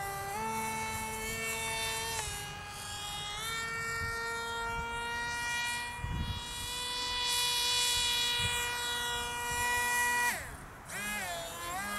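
High-pitched whine of the electric motor of a radio-controlled Yak-130 foam jet model in flight, stepping up and down in pitch with throttle. About ten seconds in the whine drops away suddenly, then winds back up about a second later. The owner says the motor stops on its own.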